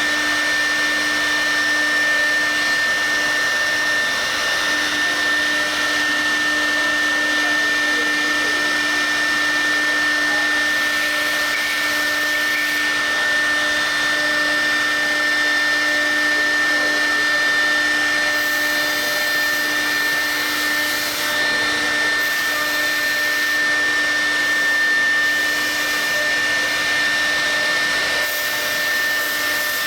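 CNC router spindle running steadily while cutting and engraving, a constant motor whine with a high tone over a rushing noise.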